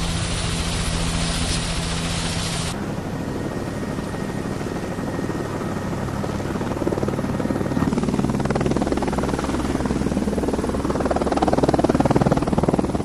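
Helicopter sound effect: rotor and engine running steadily with a fast chop. The sound changes abruptly about a third of the way in and again near the middle, and grows a little louder toward the end.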